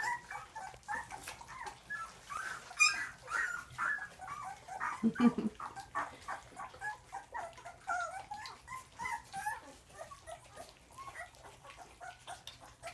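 A litter of two-week-old Rottweiler puppies squeaking and whimpering as they eat watery mush from a dish, with short wet clicks of lapping among the squeaks. A brief deeper sound comes about five seconds in.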